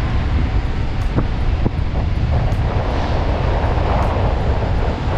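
Steady low rumble of a car's engine and road noise, heard from inside the cabin, with a hiss that grows stronger in the second half.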